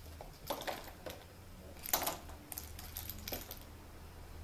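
Light clicks and knocks of small plastic toy balls being batted and chased by a kitten, with the loudest knock about two seconds in and a quick run of lighter clicks after it.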